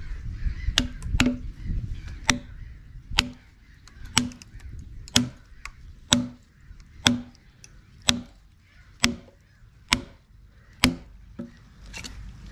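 Hammer blows driving wooden wedges into a log to split it along its length, about one sharp strike a second, each with a short, dull ring. The last two blows come closer together near the end.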